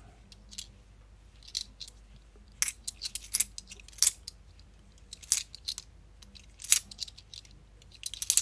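Bimetallic £2 coins clinking together as they are handled and passed one at a time from hand to hand: sharp metallic clicks at irregular intervals, several in quick succession around the middle.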